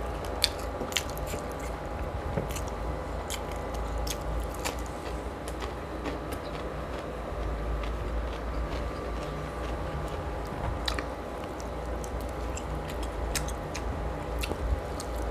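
Close-up chewing and biting of braised pork hock eaten by hand: wet mouth smacks and small clicks scattered all through, over a steady low hum.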